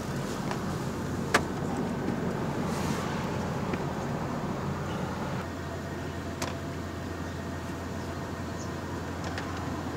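Pickup truck's engine idling, a steady hum heard from inside the cab, with two light clicks, about a second in and at about six and a half seconds.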